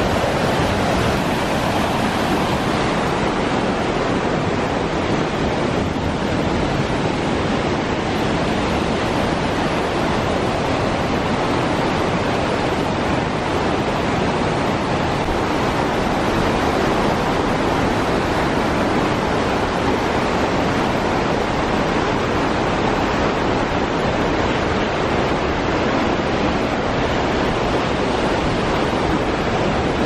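Rushing water of a fast mountain stream tumbling over rocks: a loud, steady rush that does not let up.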